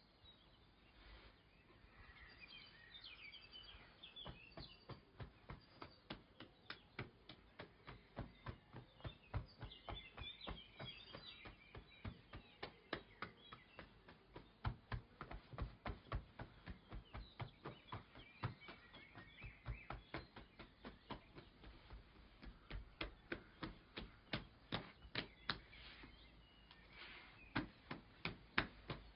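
Light, sharp taps in a steady rhythm of about three a second, with birds chirping in the background.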